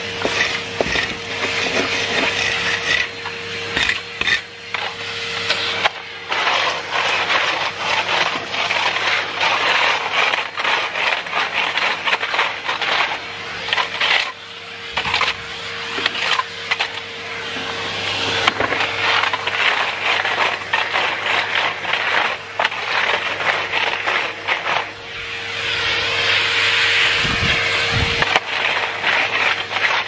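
Numatic Henry canister vacuum cleaner running with a steady motor whine, its floor tool pushed over a concrete patio with many small scrapes and clicks as it picks up grit.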